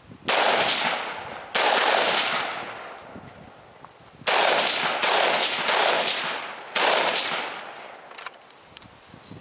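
Armalite M-15A2 rifle, a 5.56 mm AR-15, fired five single shots spaced unevenly over about seven seconds. Each crack is followed by a long echo that dies away.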